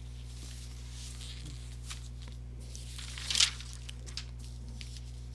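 Steady low electrical hum, with a few soft, brief rustles, the loudest about three and a half seconds in.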